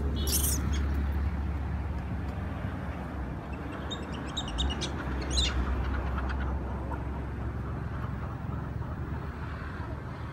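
Outdoor background noise: a steady low rumble, with a brief high chirp just after the start and a cluster of short high chirps about four to five seconds in.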